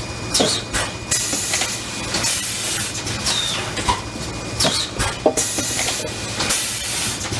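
Fully automatic PET bottle stretch blow moulding machine running: bursts of compressed-air hiss every second or two, from the blowing and venting of the moulds, some ending in a short falling whistle, with sharp mechanical clacks over a steady low hum.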